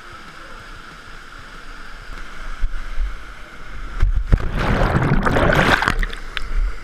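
Rushing water of a canyon waterfall pool. Then a sudden loud splash about four seconds in as a canyoner jumps feet-first into the pool, followed by about two seconds of churning water as the helmet camera goes under.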